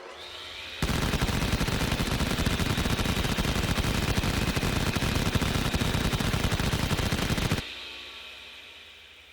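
Machine gun sound effect: one continuous burst of very rapid fire lasting about seven seconds, starting about a second in. A rising whine leads into the burst and a fading whine trails after it.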